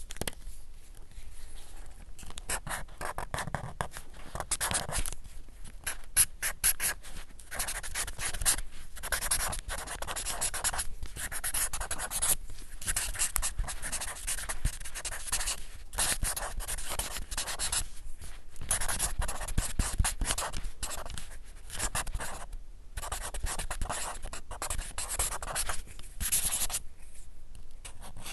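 Sharpie permanent marker writing on paper: a run of squeaky, scratchy felt-tip strokes of varying length, broken by short pauses between words.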